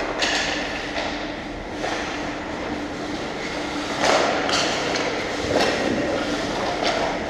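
Ice hockey skates scraping and carving across rink ice, with several sharp hissing scrapes, one right at the start and a cluster from about four seconds in, over a steady hum.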